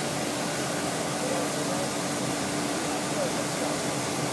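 Steady roaring hiss of a glassworks hall's machinery, with a constant low hum underneath and faint voices in the background.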